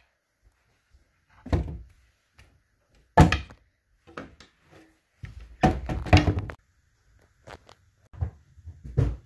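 Knocks and thumps of an under-sink cabinet door and of things being moved about inside the cupboard, the loudest about three seconds in and a quick cluster of them around six seconds.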